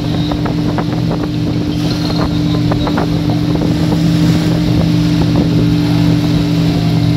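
Motorboat engine running steadily at speed, a constant drone over the rush of water, with a few short splashes in the first three seconds.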